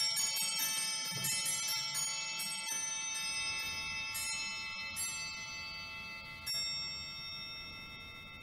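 Chimes ringing: many overlapping struck tones at first, then a few single strikes as the ringing slowly fades away.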